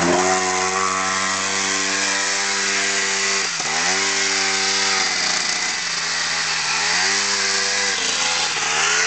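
ATV engine running steadily under throttle as the quad climbs out of the river onto a gravel bank. The engine note dips sharply and comes back about three and a half seconds in, and eases down and up again near the seven-second mark.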